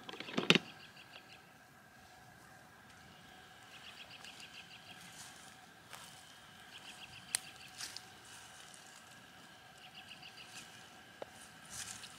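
Short, rapidly pulsed high trills, each under a second, repeating about every three seconds from an animal calling outdoors. A brief loud clatter comes about half a second in.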